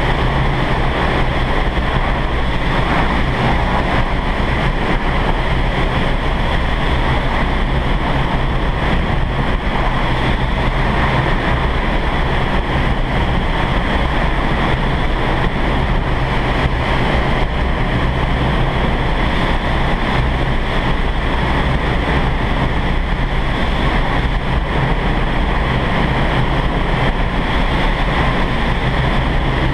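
Steady rush of high-speed air in an indoor skydiving vertical wind tunnel's flight chamber while flyers are in the airflow, with a low hum underneath.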